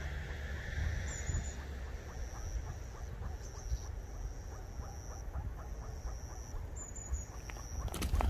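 A group of meerkats standing on alert gives rapid, repeated short calls, about four a second. These are alarm calls from a group tense at a distant predator, heard over a low wind rumble.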